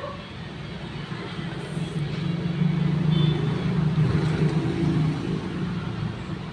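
A motor vehicle engine running steadily in the background, growing louder for a couple of seconds in the middle and then easing off.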